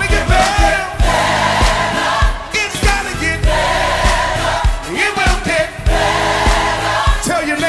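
Gospel choir singing with a live band, over a steady kick-drum beat.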